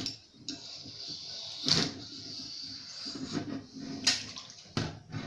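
Brass bore brush on a rod being scrubbed back and forth through a black-powder revolver barrel under soapy sink water, with sloshing and splashing. Two louder strokes stand out, about two seconds and four seconds in; the scrubbing clears hard fouling and lead residue from the bore.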